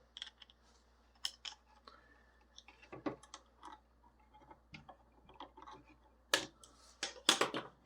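Wire cutters snipping through thin insulated wires, a few sharp clicks spread out, with small handling clicks and rustles between them.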